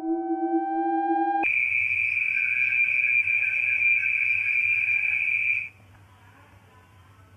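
A steady low tone switches abruptly, about a second and a half in, to a loud, high-pitched steady whine, which cuts off suddenly near six seconds in, leaving only a faint low hum.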